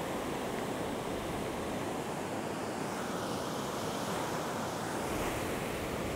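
Steady rush of surf breaking and washing up a beach, with some wind.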